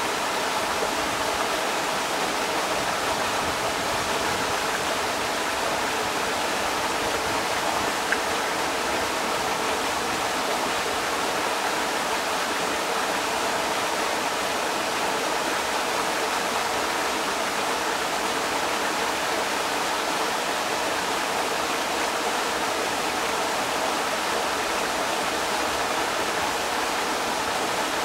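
Creek water rushing over rocks, a steady, unbroken flow.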